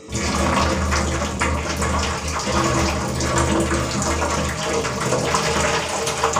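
Starchy cooking water being poured out of a covered steel pot of boiled rice into a steel bowl: a steady splashing stream as the cooked rice is drained.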